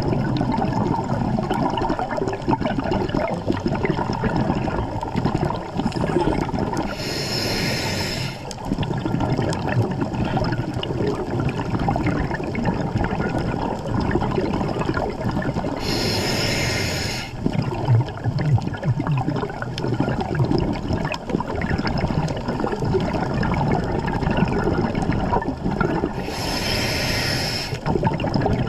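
Scuba breathing underwater: the regulator hisses on each inhale, three times about nine seconds apart, with a steady rush of water and bubble noise in between.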